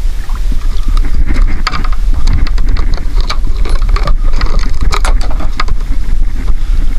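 Wind buffeting the action-camera microphone with a steady low rumble, over a run of sharp clicks and taps from fishing tackle being handled while a hooked fish's tangled lures are worked free.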